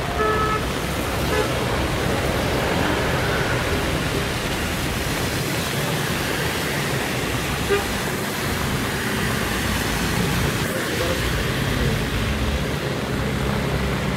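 Traffic on a rain-soaked road: a steady hiss of tyres on wet asphalt and rain as vehicles pass, with a short car horn toot about half a second in. Toward the end a bus engine hums as it draws near.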